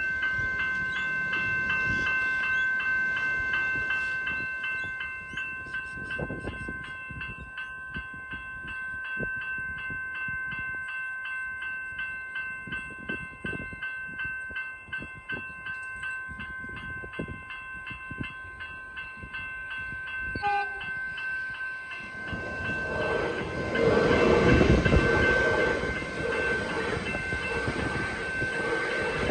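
Level crossing's electronic bell ringing steadily in fast repeated strokes. From about two-thirds of the way in, a train runs through the crossing, its rumble and wheel noise swelling to the loudest point near the end.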